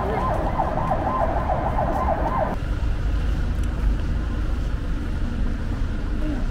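An electronic siren warbling rapidly up and down, several swings a second, that cuts off suddenly about two and a half seconds in, over a steady low rumble.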